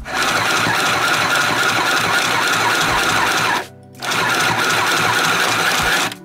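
Mini pedal-operated sewing machine running loudly, its needle stitching through six layers of denim. It runs in two stretches, stopping for about half a second a little past halfway, then starting again and stopping near the end.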